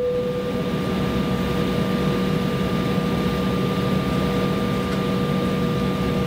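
Cabin noise of an Embraer 170 airliner taxiing, heard inside the cabin from a rear seat. Its turbofan engines run steadily, giving a low hum under a constant whine.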